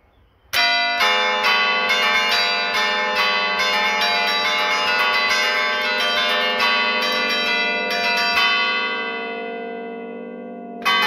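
A set of church bells played by hand from a bell-tower keyboard, the ringer striking the levers to sound a quick festive tune in the Bergamasque 'allegrezza' style. About eight seconds in the strikes stop and the bells ring on and fade for about two seconds, then the playing starts again near the end.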